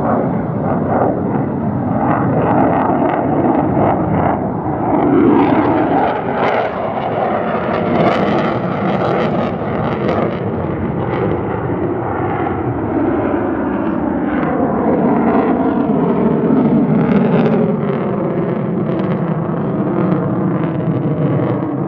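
F-35A Lightning II's single F135 afterburning turbofan roaring through a flyby, with a rough crackle and its pitch sliding down midway through.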